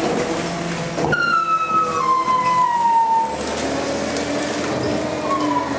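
MacDonald Johnston side-loader garbage truck's hydraulics working the packer. About a second in there is a knock, then a whine that slides slowly down in pitch over about two seconds. A shorter gliding tone comes near the end.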